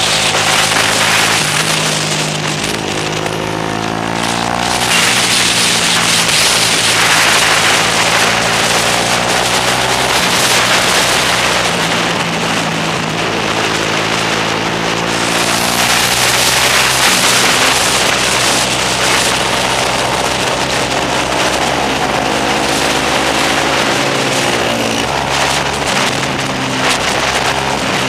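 Onboard sound of a motorcycle lapping a race track: the engine's pitch climbs and drops repeatedly as the rider accelerates out of corners and shifts, under heavy wind rush on the microphone.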